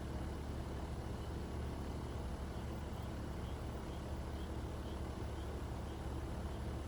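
Steady low rumbling noise of storm wind outdoors, with faint high chirps repeating about twice a second through the middle.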